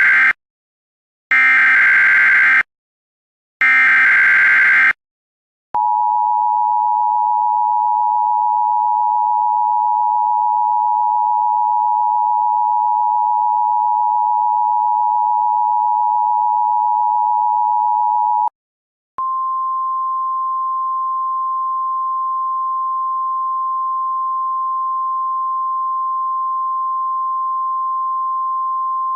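Emergency Alert System tones: three short bursts of the SAME digital header, the first already under way, then the two-tone EAS attention signal held steady for about thirteen seconds. After a short break it gives way to a single steady tone, the NOAA Weather Radio warning alarm.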